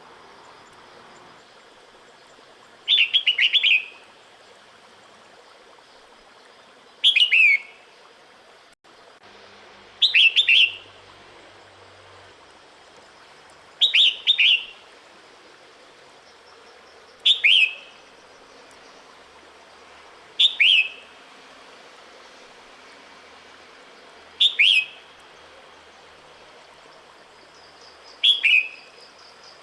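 Female red-whiskered bulbul calling to draw a male in breeding season: eight short, falling phrases, one about every three to four seconds.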